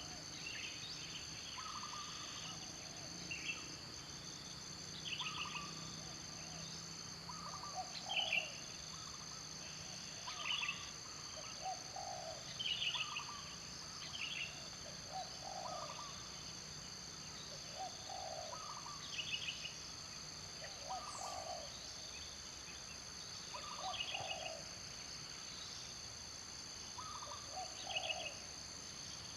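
Steady high-pitched insect drone, with a short animal call repeating about every one to two seconds.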